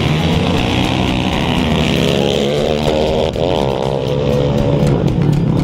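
Four-wheeler (ATV) engines accelerating hard down a dirt drag strip. The revs climb, drop at a gear change about three seconds in, then climb again.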